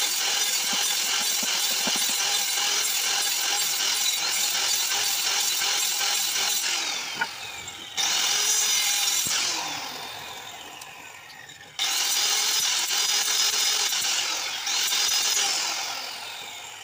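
Handheld electric circular saw cutting wooden battens, its motor whining steadily under load. Several times the trigger is released and the blade spins down with a falling pitch, then the motor is started again and rises back to speed; near the end it winds down to a stop.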